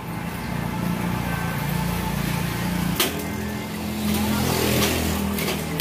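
A motor vehicle engine running close by, low and steady, its note changing about three seconds in. Two sharp snaps, one about three seconds in and one at the very end, from a hand rivet gun breaking off pop-rivet mandrels in the metal furring frame.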